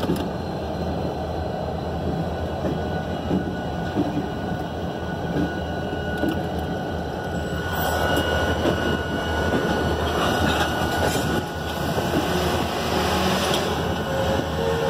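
Diesel locomotives rolling slowly past: a steady low engine drone and rumble of wheels on rail, getting louder about eight seconds in, with a thin steady high tone running over it.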